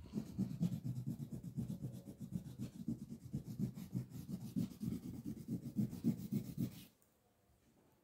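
Yellow crayon rubbed on paper in quick back-and-forth colouring strokes, a dense scratchy rubbing that stops shortly before the end.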